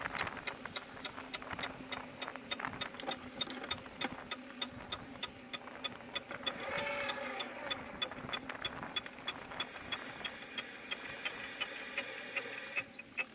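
Bicycle rear wheel ticking in a quick, regular rhythm, about four ticks a second, as the bike rolls along. It is a repeating noise from the back wheel while riding.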